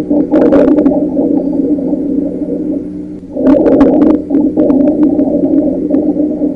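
Recorded chest sounds through a stethoscope: a continuous, low-pitched musical adventitious breath sound of the wheeze–rhonchi kind, swelling with two breaths that are split by a short dip about three seconds in. Scattered crackle-like clicks sound during the second breath.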